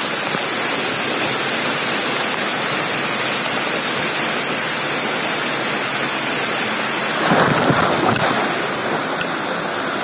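Waterfall pouring, heard from right beneath the fall: a steady rushing hiss of falling water, with a louder surge of splashing about seven seconds in that lasts a second or so.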